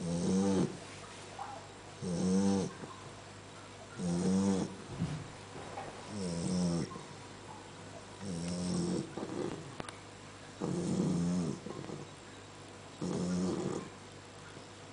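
One-month-old Great Dane puppy snoring: a pitched snore on each breath, seven in all, about one every two seconds.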